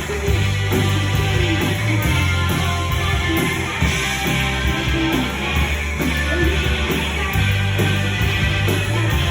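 Rock band playing live: electric guitars and bass guitar over a steady drumbeat with regular cymbal hits.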